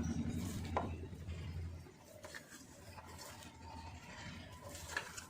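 Spoon or whisk stirring egg and cornflour batter in a bowl, with a few scattered clicks and taps against the bowl. A steady low hum stops about two seconds in.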